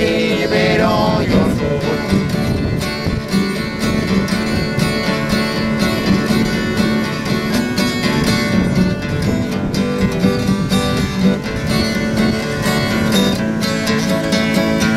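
Steel-string acoustic guitar picked with a flatpick, playing an instrumental passage of a country-folk song at a steady tempo.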